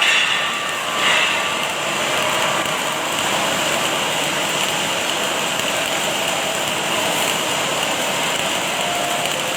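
Automatic welding machinery running in a factory: a continuous, loud hiss with faint steady tones.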